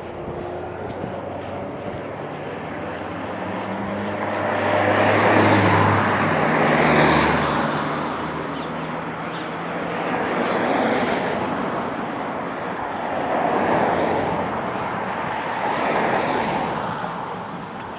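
Road traffic: several motor vehicles pass one after another, their engine and tyre noise swelling and fading about five times.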